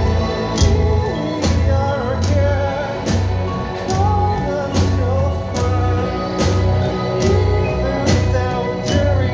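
A live band playing: drum kit with a snare hit about every 0.8 seconds over a bass drum pulse, electric bass and electric guitar through amplifiers, with a voice singing over it.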